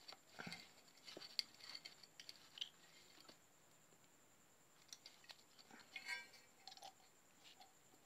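Faint, scattered small metal clicks and scrapes as an inside bearing puller is worked and turned in a ceiling fan's cast end cover to draw out the bearing, with a quiet spell in the middle.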